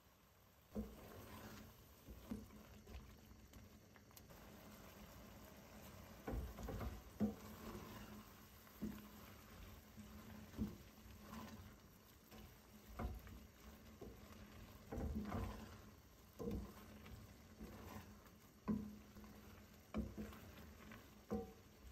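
Wooden spoon stirring a thick chickpea curry in a stainless steel pan: wet stirring sounds of the sauce with irregular taps and scrapes of the spoon against the pan, about one every second or two.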